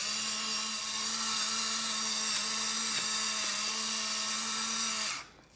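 Electric pepper grinder's small motor running steadily, grinding black pepper, and stopping about five seconds in.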